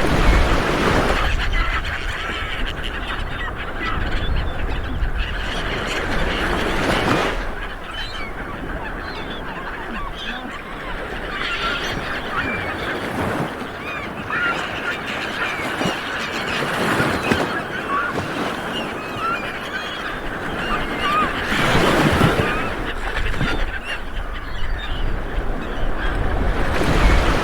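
Small waves breaking and washing up a beach, surging about every five seconds with the biggest swells near the start, around 22 s and near the end, while birds call over the surf with many short honking cries.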